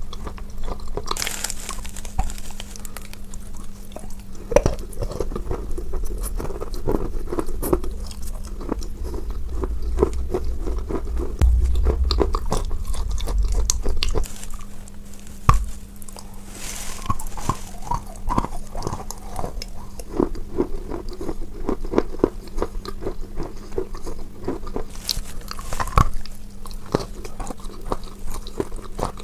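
Close-miked chewing and crunching of chalk eaten with chalk paste: a dense run of crisp crunches with a few louder bites, over a steady low hum.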